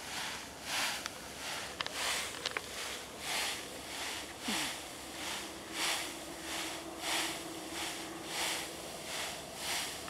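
Dry, ripe wheat stalks swishing against legs and body as someone wades through a wheat field, in a steady rhythm of about one and a half swishes a second.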